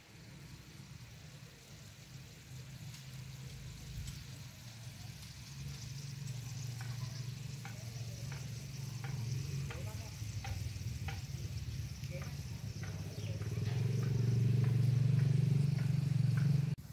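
Whole rabbit roasting over glowing charcoal: fat sizzling with many sharp crackles and pops. Under it a low steady rumble grows louder near the end and cuts off suddenly.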